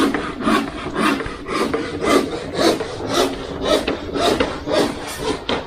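Footsteps crunching and scuffing on dry dirt and gravel, about two steps a second.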